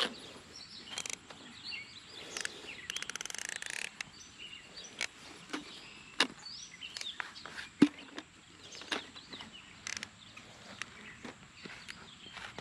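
Scattered clicks and knocks of a plastic lawn sprinkler head being handled, with a short rapid rattle about three seconds in and one sharper click near the end. Birds chirp in the background.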